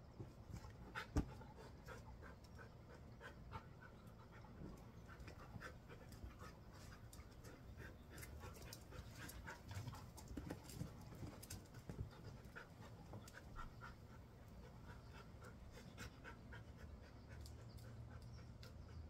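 Dogs panting, a sign of cooling down in the heat, with scattered faint clicks and a sharp tap about a second in.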